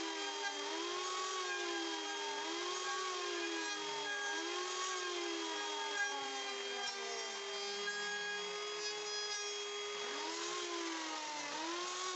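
Small power tool cutting a mortise in a wooden window frame: a steady motor hum with a second tone that dips and rises in pitch about every one and a half seconds, the dips deeper and slower for a few seconds after the middle.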